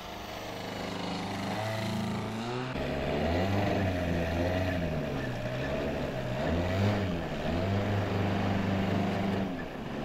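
Engine and propeller of a large radio-controlled tow plane, a model Piper Pawnee tug, running on the ground and being throttled up and down several times, the engine note rising and falling.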